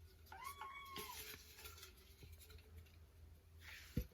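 Domestic cat meowing once, faintly, about half a second in, with faint rustling and a click near the end.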